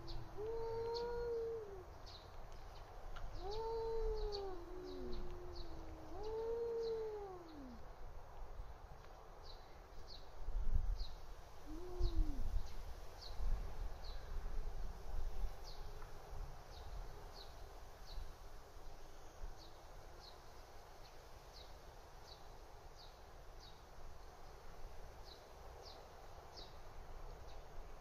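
Domestic cats yowling at each other in a territorial standoff: about four long, rising-and-falling moaning calls in the first eight seconds, then one shorter call about twelve seconds in. Short high chirps repeat faintly throughout.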